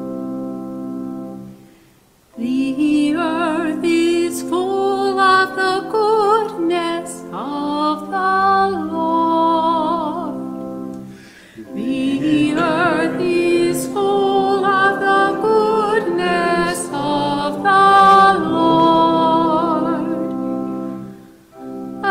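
A woman cantor singing a responsorial psalm solo, with vibrato, over sustained organ chords. The chords sound alone at first and she comes in about two seconds in, pausing briefly just past the halfway point.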